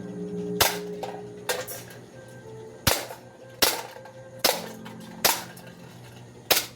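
Gas airsoft MEU 1911 pistol firing six sharp shots at an even pace, about one a second, with a fainter click between the first two.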